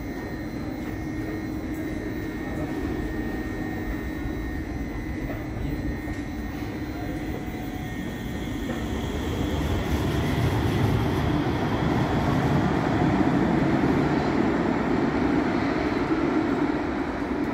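A KVB light-rail tram hums steadily while standing at the platform of an underground station. About ten seconds in, a louder rumble and motor whine build up as it pulls out along the track, easing off near the end.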